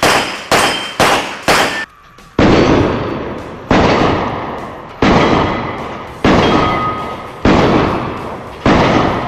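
Handgun shots: a quick string about two a second, then six more spaced about a second and a quarter apart, each with a long trailing decay.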